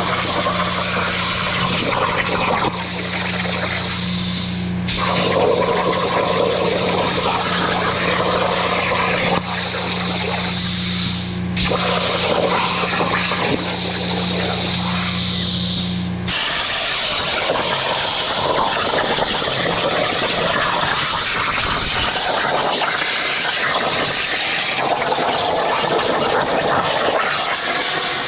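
Hypertherm Powermax 45 XP plasma cutter on a CNC table, its arc cutting through steel sheet with a loud, steady hiss. The hiss breaks off briefly three times. A low hum runs under it and stops about 16 seconds in.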